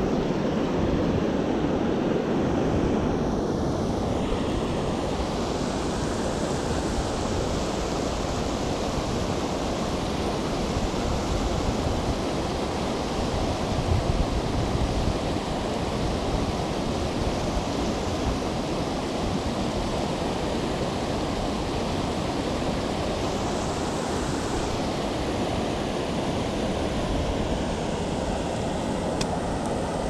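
Steady rushing of a creek riffle, with wind rumbling on the microphone.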